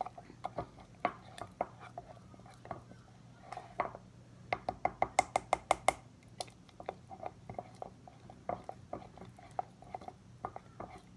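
A spoon stirring thick cake batter in a ceramic mug, clinking and scraping against the mug's sides, with a fast run of about six taps a second around the middle.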